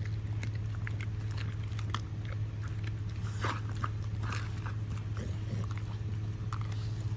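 Pit bull chewing raw chicken with bone, a scatter of short sharp crunches and clicks, over a steady low hum.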